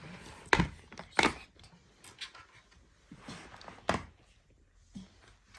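A few separate sharp knocks and clicks, the loudest about half a second and just over a second in, another near four seconds and a smaller one near five, from handling a plastic interactive toy pony.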